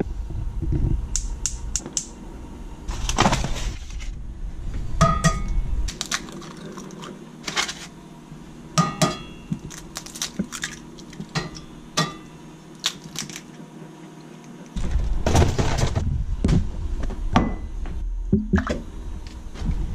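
Kitchen cooking sounds: scattered knocks, taps and clinks of cookware on a gas stove, including eggs cracked against a cast-iron skillet.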